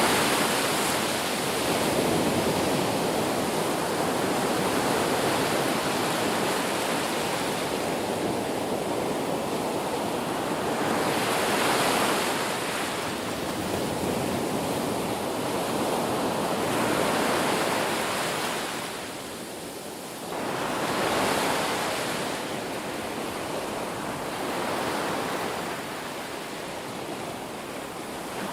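Ocean surf breaking on a beach: a continuous rush of waves that swells and eases every few seconds as each wave comes in, with a brief lull about two-thirds of the way through before the next wave breaks.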